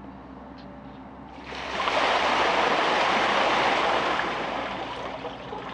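A large binful of ice water poured over a seated person and splashing onto a concrete floor: a rush of water starting about a second and a half in, lasting a couple of seconds, then tailing off near the end.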